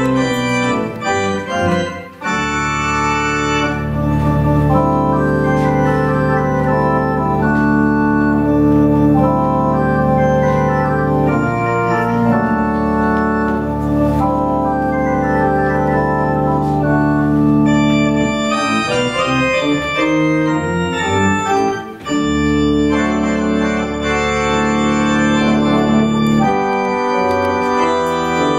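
Church organ playing sustained full chords over deep held bass notes, with a brief break about two seconds in. Past the middle it moves into a lighter passage of quicker notes, then returns to full chords.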